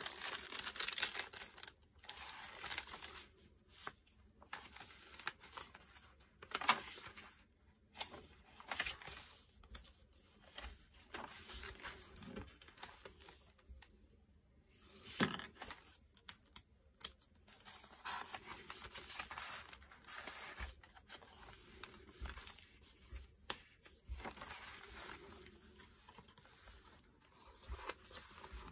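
Paper rustling and crinkling as the coffee-dyed pages and tags of a handmade junk journal are turned and handled, with a few sharper taps.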